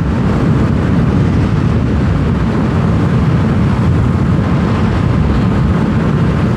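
Steady rush of wind and road noise on a moving Yamaha Aerox 155 scooter, the wind buffeting the camera's microphone.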